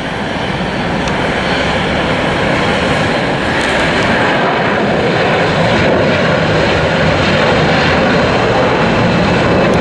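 Azul Airbus A330 airliner just after rotation, climbing out under takeoff thrust: loud, steady jet engine noise that swells a little in the first second and then holds.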